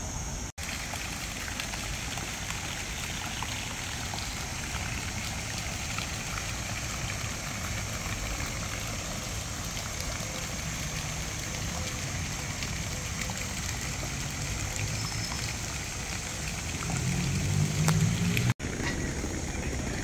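Fountain water splashing into a pond: a steady, even rush. Near the end, a low rumble briefly rises over it.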